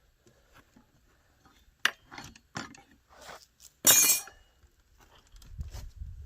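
Chainsaw parts and hand tools clinking and knocking during assembly: a string of sharp clicks, then a short, loud clatter about four seconds in.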